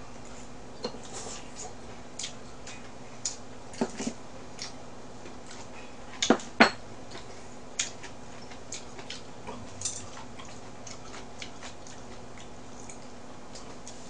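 Chopsticks clicking and tapping against bowls and dishes while eating: scattered light clicks, with two sharper ones close together about six seconds in, over a steady low hum.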